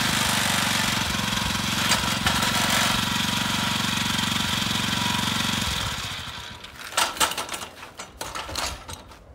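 Honda Komame F200 mini cultivator's small petrol engine running with a fast rattling beat, then winding down and stopping about six seconds in. A few sharp clicks and knocks follow near the end.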